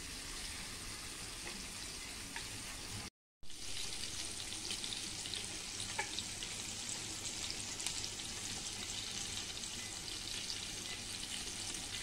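Floured fish fillets frying in shallow oil in a pan: a steady sizzle with scattered small pops and crackles. The sound drops out completely for a moment about three seconds in.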